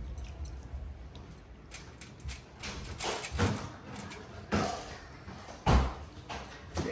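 A few irregular knocks and clattering handling sounds, the loudest about three and a half and nearly six seconds in.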